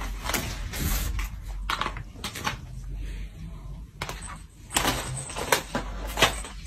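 Clear plastic cone collars on two wrestling cats knocking against each other and scraping on a wooden floor: an irregular run of light clattering clicks and knocks.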